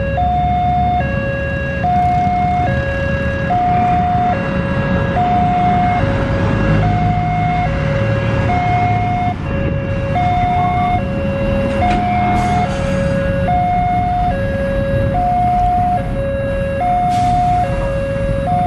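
Railway level-crossing warning alarm sounding an even two-tone alternation, a higher and a lower note each lasting a bit under a second, signalling that a train is approaching with the barrier down. Road traffic and motorcycle engines run underneath.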